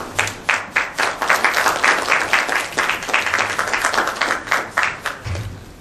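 Audience applauding, a dense run of hand claps that dies away near the end.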